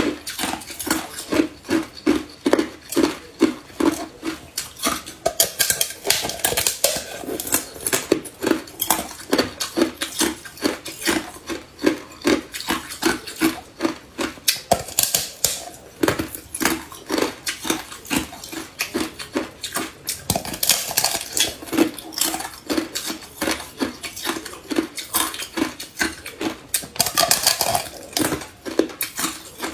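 Hard ice being bitten off the rim of a frozen ice bowl and chewed: a steady run of crisp crunches, about three a second.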